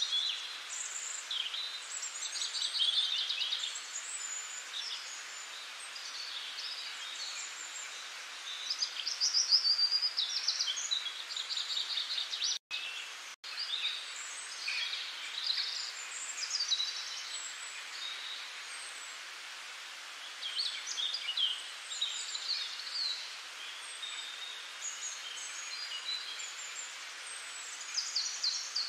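Small birds chirping and singing in short, varied phrases over a steady background hiss, with two brief cut-outs to silence near the middle.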